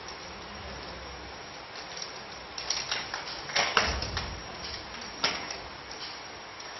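Plastic and steel parts of a toddler tricycle being handled during assembly: a run of light clicks and knocks about three to four seconds in, then one sharp click a little past five seconds, over a steady hiss.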